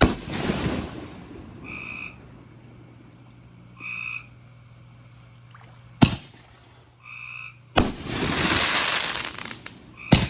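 Backyard fireworks going off: a sharp bang at the start followed by crackling, another bang about six seconds in, then a bang with a long crackling shower near the end and a last bang just before it closes. Between the bangs a short high call repeats about every two seconds.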